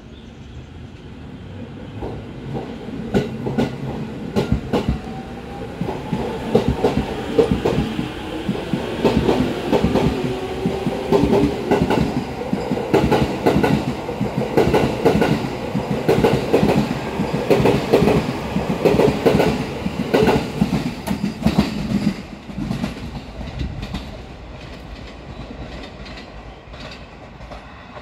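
JR East E231 series electric commuter train pulling away and accelerating past, its VVVF inverter and traction motors giving a rising whine. The wheels clack rhythmically over the rail joints. The sound fades as the last cars go by near the end.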